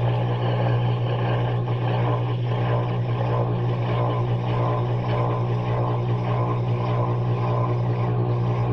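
Maytag front-loading washing machine running on its delicate cycle, heard from inside the drum: a steady, even hum with a busy noise over it.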